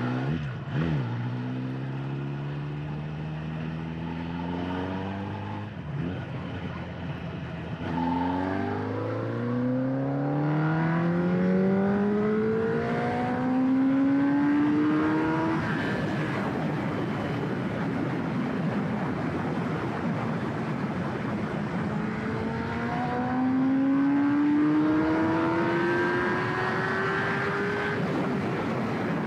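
Kawasaki ZX10R's inline-four engine pulling hard in third gear, its note climbing in long steady sweeps about three times. Heavy wind rush fills the stretch about halfway through.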